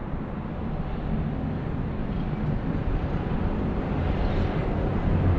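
Steady low rumble of city road traffic, slowly growing louder.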